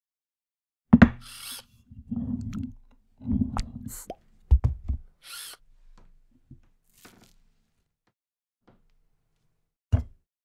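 Stop-motion foley for dough being shaped into a bun. A sharp knock comes about a second in, followed by low, squishy thuds and rumbles and a few short bursts of hiss. One more knock lands near the end.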